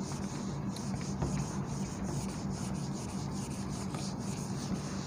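Whiteboard duster rubbing back and forth over a whiteboard, wiping off marker writing: a steady scrubbing sound of felt on the board.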